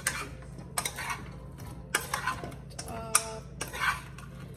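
Metal spoon stirring chopped eddoes in a coated cooking pot: a series of scrapes and knocks against the pot's sides and bottom, one clink ringing briefly about three seconds in.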